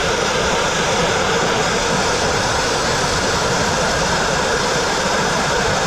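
Dustless (wet abrasive) blasting nozzle firing fine crushed-glass media and water against brick, a steady loud hiss without a break as it strips masonry paint off the wall.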